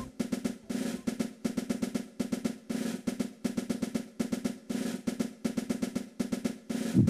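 Background music: short rapid snare drum rolls repeating about twice a second.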